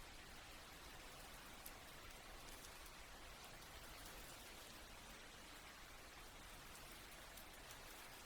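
Soft steady rain, an even hiss with faint scattered drop ticks.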